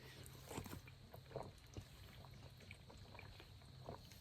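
Near silence, with a few faint, short soft ticks scattered through it.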